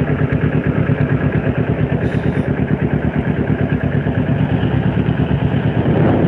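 Kawasaki Ninja 250R's parallel-twin engine running at low revs in slow traffic, a steady, evenly pulsing note.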